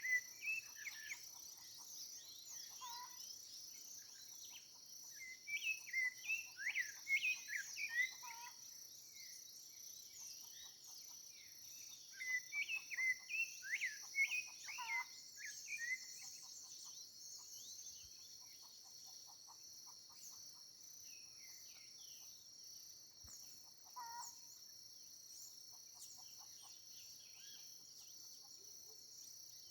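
Songbirds singing in bursts of quick, high chirps, with quieter gaps between phrases, over a steady high-pitched insect drone that runs throughout.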